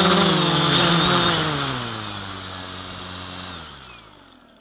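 Quadcopter's brushless motors and propellers running steadily, then winding down after about a second, their pitch falling and fading until they stop near the end as the landed drone spins down.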